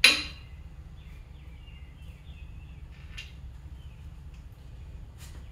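A sharp metallic clink right at the start, then a couple of faint clicks, as main bearing cap bolts are handled and started by hand in an engine block.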